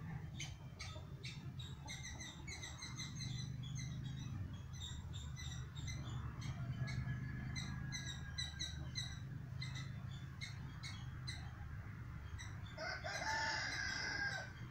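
Birds chirping in short repeated calls, with one longer, louder call about a second and a half long near the end, over a steady low rumble.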